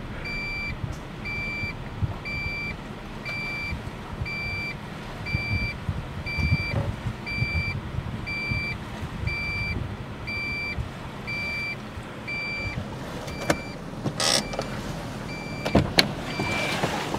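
A truck's reverse warning chime beeping steadily about twice a second as the truck backs a boat trailer down a ramp, over the low rumble of the engine. The beeping stops for a couple of seconds near the end, where a few short knocks are heard.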